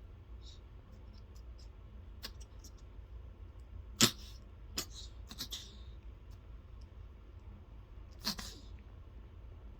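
A pet's short, sharp sneezing snorts, a handful spread over several seconds with the loudest about four seconds in, which the owner wonders may be reverse sneezing.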